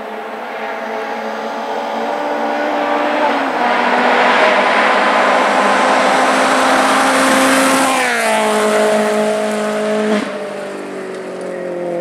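Rally car at full throttle on a loose gravel stage, coming closer and getting louder, its engine note over the hiss of tyres on gravel. About eight seconds in the engine note drops sharply as the car passes, and the sound then fades as it goes away.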